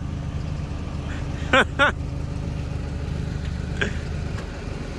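Engine idling steadily, with a short two-part voice sound, a yelp rising and falling twice, about a second and a half in.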